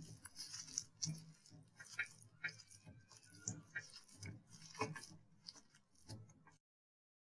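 Faint wet squelching and squishing of raw chicken pieces being kneaded by hand in a soy sauce and egg marinade in a glass bowl, with small irregular clicks. It cuts off near the end.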